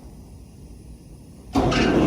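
Quiet room tone, then about a second and a half in a loud, steady motor sound starts abruptly and keeps running.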